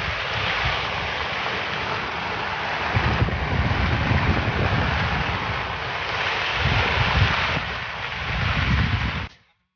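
Heavy rain and rushing floodwater, a steady hiss and rush, with wind buffeting the microphone in low gusts that swell several times. The sound cuts off suddenly near the end.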